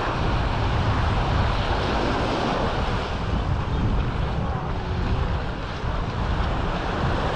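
Sea surf washing on the shore, with wind buffeting the microphone in a steady low rumble.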